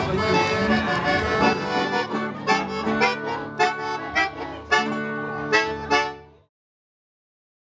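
Accordion music, with a run of sharply struck notes in its second half. It stops about six seconds in.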